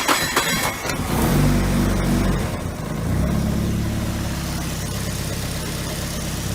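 Suzuki Wagon R's small three-cylinder engine cranking on the starter, catching about a second in, flaring up briefly and then settling to a steady idle.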